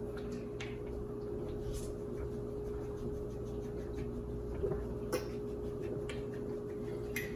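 Faint gulping and plastic-bottle sounds as soda is chugged from 1-liter bottles, a few brief soft clicks, over a steady low hum.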